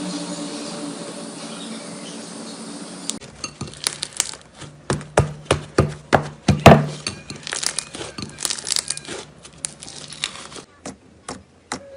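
Slime being squished and worked, giving a dense run of sharp crackles and pops that start abruptly about three seconds in and thin out near the end. Before that there is a steady low hum.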